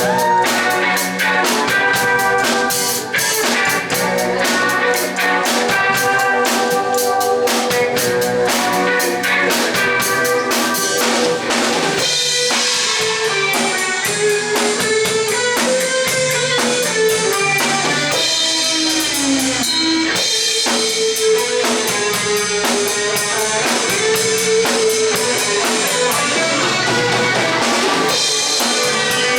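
Rock band playing an instrumental passage without vocals: drum kit keeping a steady beat under guitar, with a lead melody line moving over the chords from about halfway through.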